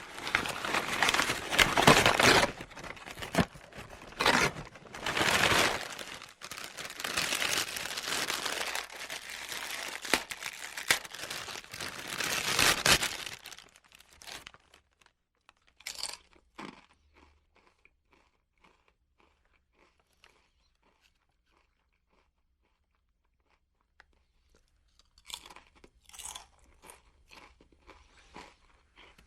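Potato chips being bitten and chewed: loud, dense crunching for roughly the first half, then softer, sparse chewing clicks, a near-silent pause, and quieter crunching again near the end.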